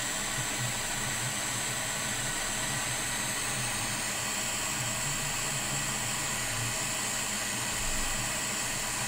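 Handheld butane micro torch burning with a steady hiss while its small blue flame heats shellac.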